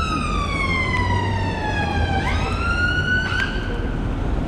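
Siren of an emergency vehicle in wail mode: a long tone falling slowly in pitch, then sweeping up sharply about two seconds in and holding before it fades, over a steady low rumble of street traffic.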